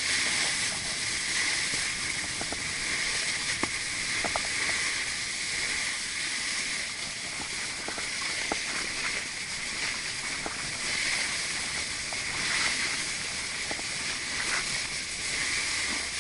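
Snowboard sliding and carving down packed, groomed snow: a steady scraping hiss from the board's base and edges, with scattered small ticks.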